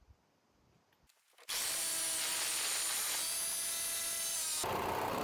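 Corded jigsaw cutting through the van's steel door panel: it starts abruptly about a second and a half in and runs steadily with a high whine, its sound turning lower near the end.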